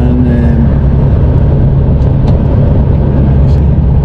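Lorry cab interior while driving: the truck's engine and road noise make a steady low drone.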